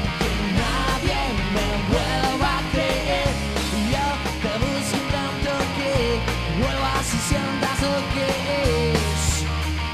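Live rock band performing: a male lead singer sings over electric guitars, bass and drums.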